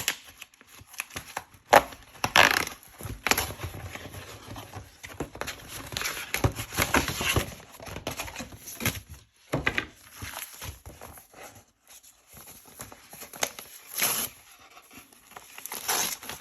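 A craft-kit box being unboxed by hand: irregular rustling and crinkling of paper and plastic packaging, with scattered taps and knocks as items are moved about.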